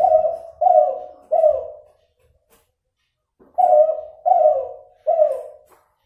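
A derkuku (spotted dove), an F2 cross of a Kelantan derkuku and a cuhu hen, cooing: two phrases of three drawn-out coos each, with a pause of about a second and a half between them. The voice is still nasal, and the count of its ending notes is inconsistent.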